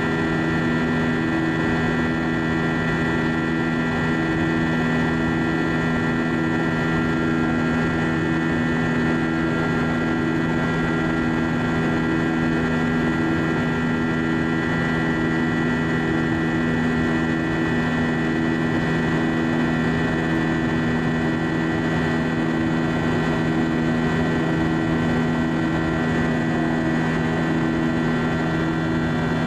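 Cabin noise of an Airbus A320-232 climbing out after takeoff, heard from a window seat beside the wing: its IAE V2500 turbofans give a steady drone of several held tones, one of them beating in a slow, even pulse.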